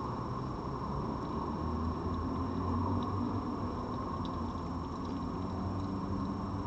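Red fox eating dry food from a bowl: faint scattered crunches and ticks over a steady hum and hiss.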